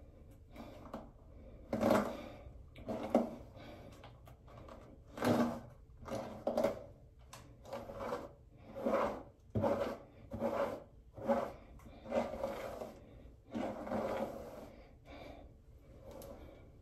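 A hairbrush pulled again and again through long wig hair: a run of rasping brush strokes, roughly one a second.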